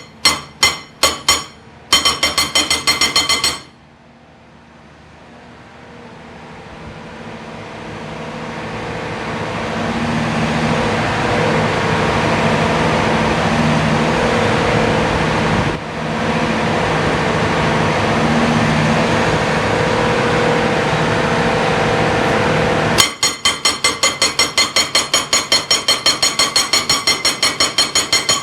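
An A22 hydraulic breaker hammering in rapid, ringing metallic blows, about six a second, which stop a little over three seconds in. After that a steady machine hum swells slowly louder. Near the end the hammering starts again at the same rate.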